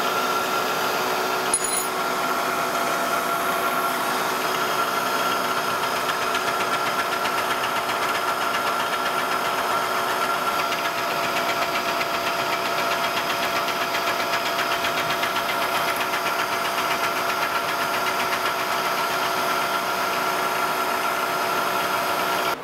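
Vertical milling machine running steadily, its end mill cutting a wrench flat into the side of a knurled collet nut: a constant hum with several steady tones and a dense cutting noise over it.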